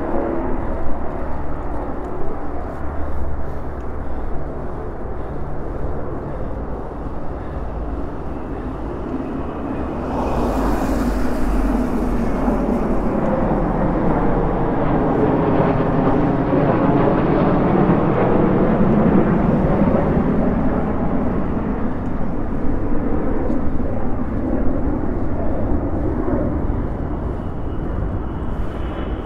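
Aircraft engines of a low formation flypast, a broad rushing noise that swells from about ten seconds in, peaks past the middle and eases off near the end, over a steady low rumble of wind on the microphone of a moving bicycle.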